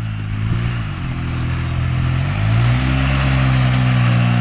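Four-wheel-drive vehicle's engine working hard through deep snow, its note wavering and then swelling louder about two seconds in.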